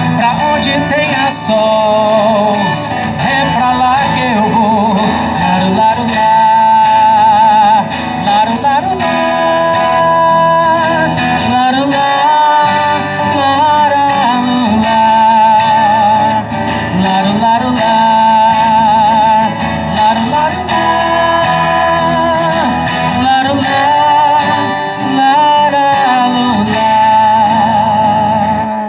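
A song: a voice sings long, wavering notes with vibrato over guitar accompaniment.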